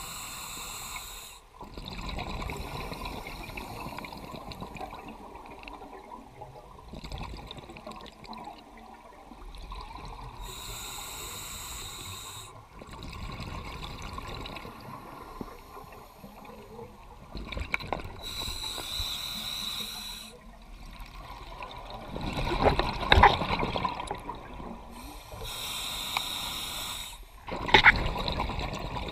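Scuba diver breathing through a regulator underwater. Four hissing inhalations come several seconds apart, each followed by a longer stream of exhaled bubbles; the bubbling is loudest in the last third.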